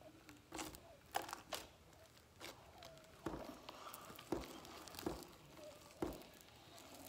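Homemade white slime being kneaded by hand against a tabletop: faint, irregular sticky clicks and pops as it is pressed down and pulled up off the surface.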